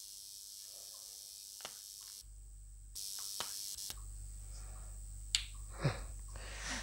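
A few scattered light clicks and taps from desoldering work on a buck-converter circuit board, the clearest near the end, over a steady background hiss.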